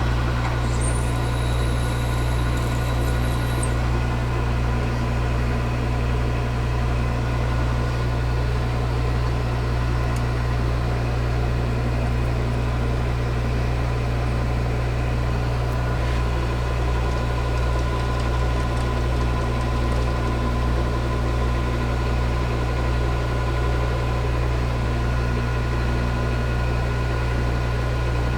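Metalworking machine tool running steadily with a constant low hum and a few faint steady higher tones while boring a small hole in the part.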